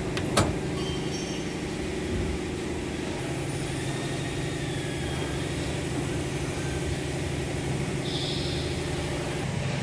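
A sharp click as the rotary main-isolator handle on a press brake's electrical cabinet door is turned, over a steady low machine hum with several stacked tones.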